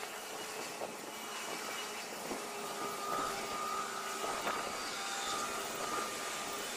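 Diesel freight locomotive approaching slowly: a steady engine drone, with a thin whine coming in about three seconds in and a few faint clicks.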